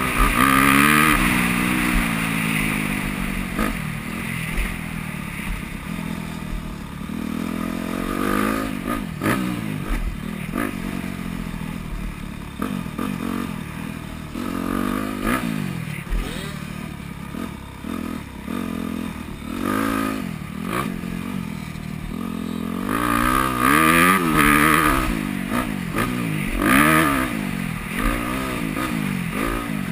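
Yamaha YZ250F four-stroke single-cylinder motocross engine revving up and down over and over as the throttle is opened and closed through the gears, heard on board. It is loudest near the start and again near the end, with clatter from the bike over the bumps.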